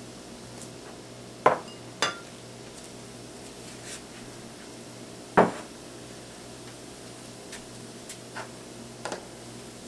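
Kitchenware being handled on a countertop: scattered sharp clinks and knocks of dishes, including a small glass bowl being set down, with three louder knocks, over a steady low hum.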